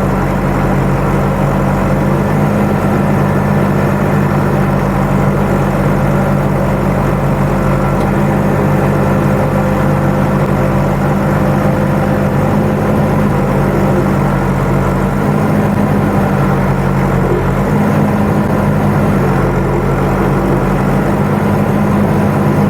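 Tractor engine running steadily, its pitch shifting slightly a few times in the second half.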